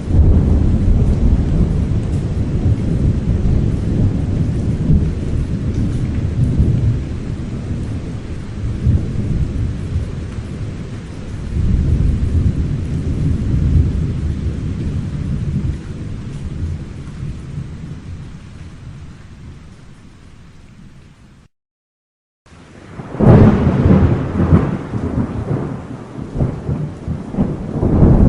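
Thunder rolling: a long, deep rumble that swells twice and slowly dies away, then cuts off abruptly about 21 seconds in. After a second of silence a new, louder crack of thunder breaks and rumbles on.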